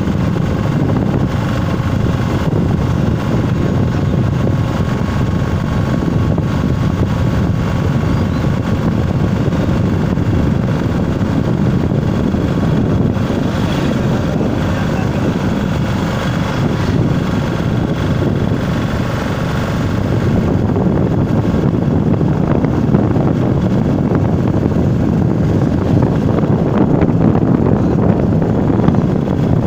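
Steady wind buffeting the phone microphone, mixed with the running and road noise of a vehicle moving along a paved road. It grows slightly louder about two-thirds of the way through.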